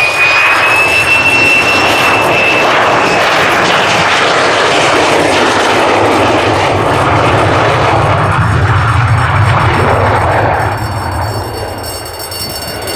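Lockheed Martin F-35A Lightning II's single Pratt & Whitney F135 turbofan at high power during a go-around: a loud jet roar with a steady high whine for the first few seconds. A deeper rumble builds in the middle, and the roar fades over the last two seconds.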